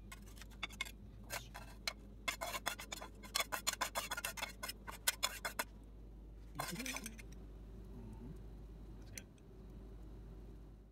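Metal spatula scraping and clicking against a stainless-steel frying pan as fried vegetables are pushed out onto a plate: a quick run of clicks for about five seconds, then one longer scrape. A steady low hum lies underneath.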